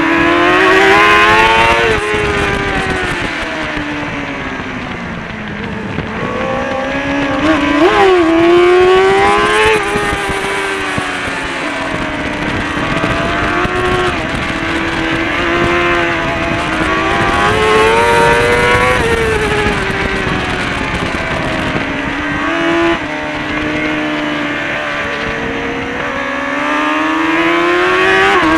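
Kawasaki ZXR400 race bike's 400 cc inline-four engine at racing speed, heard onboard, its pitch climbing under acceleration and dropping back again and again as the rider speeds up and slows for the corners.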